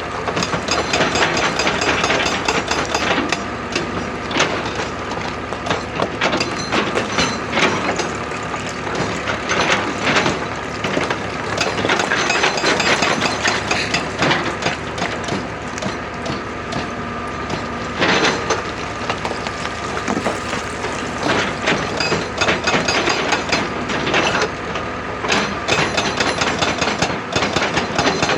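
Excavator working rock: the engine runs steadily under a dense, irregular clatter of cracking and knocking rock and metal.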